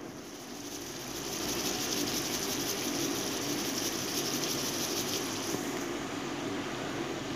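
Squid in vinegar sauce simmering in a wok: a steady bubbling sizzle that grows a little louder about a second in and cuts off sharply at the end.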